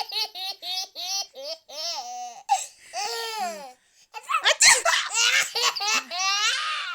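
Baby laughing in quick runs of short, high-pitched giggles, breaking off briefly about four seconds in before a louder round of laughter.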